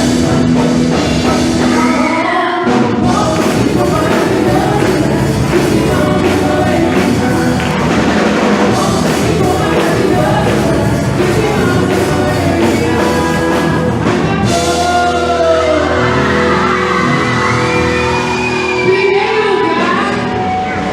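Music with singing: a sung song over a full band accompaniment.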